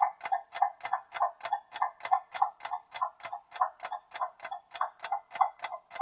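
Clock-style ticking sound effect marking a quiz countdown timer: even, quick tick-tock clicks, about three to four a second.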